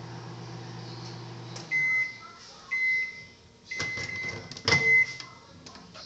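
Hamilton Beach microwave oven humming as it runs, shutting off under two seconds in, then beeping four times about a second apart to signal the end of the cycle. Sharp clunks come with the last two beeps as the door is opened.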